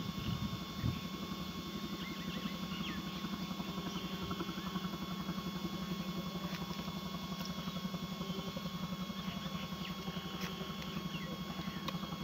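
A steady low motor hum with a fast, even throb, and a few faint high chirps over it.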